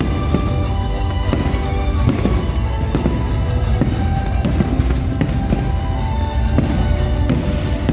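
Fireworks going off in a rapid series of sharp pops and crackles over music with sustained tones and a strong bass.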